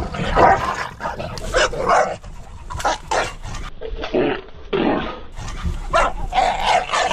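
A dog barking repeatedly in short, irregular barks.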